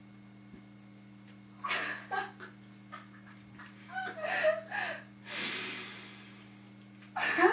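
A person gasping, snorting and breathing hard in short bursts, with a long breathy exhale about five seconds in, over a steady low electrical hum.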